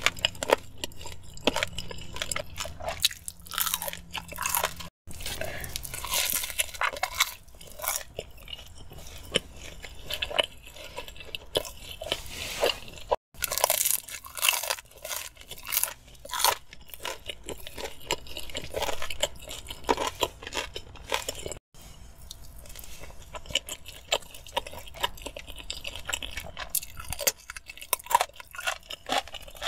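Close-miked eating: a person biting and chewing, with irregular bursts of crunching, broken three times by brief sudden dropouts.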